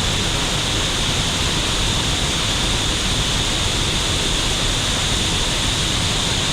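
Waterfall's falling water rushing in a loud, steady, unbroken wash of noise.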